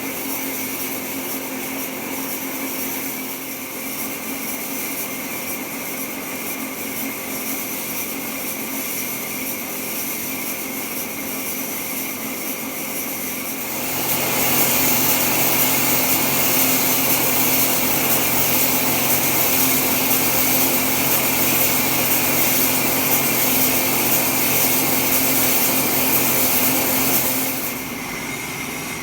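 A powered wood saw running steadily at a constant pitch. About halfway through it bites into timber, and the sound turns louder and hissier while it cuts. Near the end the cut finishes and it drops back to running free.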